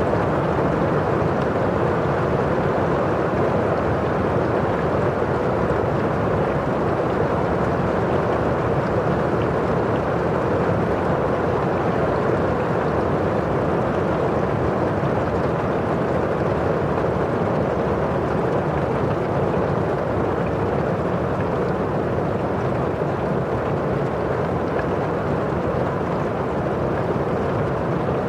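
Rain falling on a window pane and pattering outside: an even, unbroken wash of noise with no separate drops or changes.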